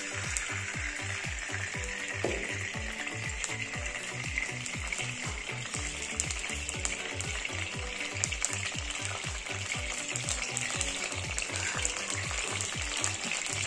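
Cooking oil sizzling and bubbling as it heats in an aluminium kadai, a steady hiss with no pause. Background music with a steady beat runs underneath.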